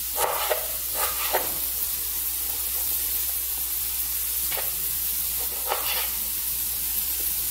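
Diced potatoes sizzling steadily as they fry in vegetable oil in a pan, with a handful of sharp knife knocks on a wooden cutting board as a red bell pepper and a tomato are diced.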